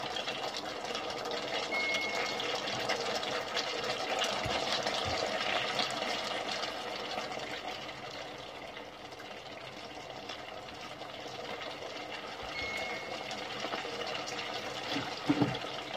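Cream of mushroom and chicken sauce bubbling in a nonstick pan as it is brought to a boil: a steady fine crackle of popping bubbles. Two short high beeps sound about two seconds in and again near the end.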